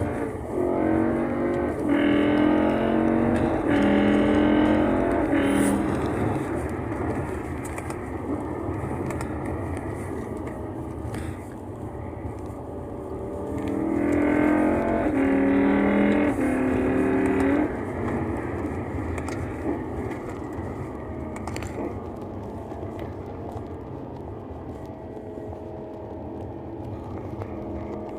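BMW E60 M5's S85 V10 with Eventuri carbon fibre intake plenums accelerating hard through quick upshifts: the intake note climbs in pitch and drops at each shift, three times in the first few seconds. It then runs more quietly before another burst through the gears about halfway through.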